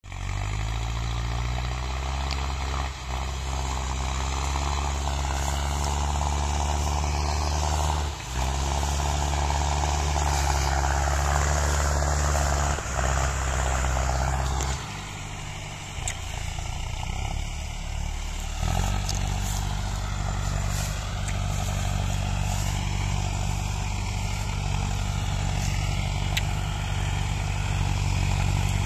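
Diesel tractor engine running under load as it hauls a heavily loaded sugarcane trailer over field stubble. The engine note shifts a few times, easing off about 15 s in and picking up again a few seconds later.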